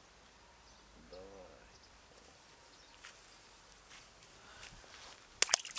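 Quiet outdoor ambience with light footsteps on grass, a short low hum about a second in, and two sharp clicks close together near the end.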